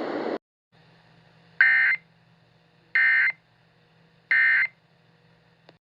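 Emergency Alert System end-of-message: three short bursts of SAME digital data tones, a harsh warbling burble, about 1.3 seconds apart, signalling the alert is over. A steady hiss cuts off just before the first burst, and a faint hum lies underneath.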